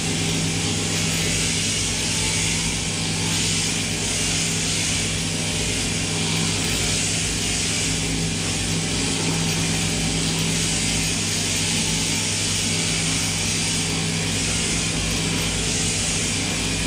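Sheep-shearing machinery running steadily: a constant motor hum with a high hiss over it.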